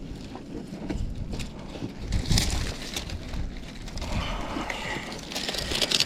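Irregular rustling, scraping and light knocks as ridge vent material is handled and pressed down on a ribbed metal roof, louder bursts about two seconds in and again near the end.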